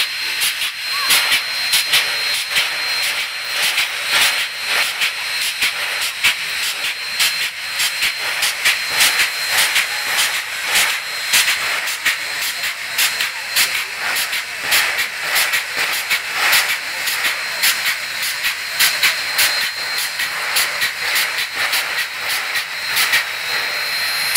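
Steam hissing from Union Pacific 844, a 4-8-4 steam locomotive standing at rest, with a thin steady high tone and rapid irregular crackling over the hiss.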